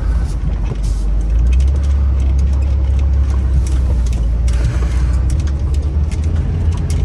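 Steady low rumble of a vehicle driving, with scattered faint clicks and rattles.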